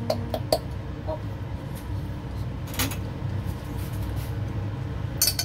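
Pieces of frozen crumbled minced meat clicking as they drop into a cast iron skillet, a quick run of clicks at the start, one tap near the middle and more clicks starting again near the end, over a steady low hum.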